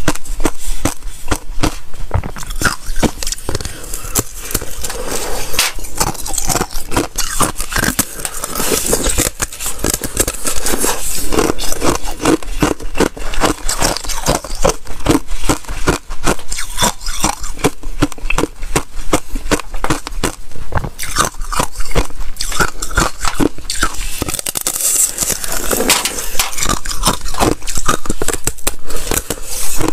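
Thin sheet ice being bitten and chewed close to the microphone: a dense, continuous run of crisp cracks and crunches.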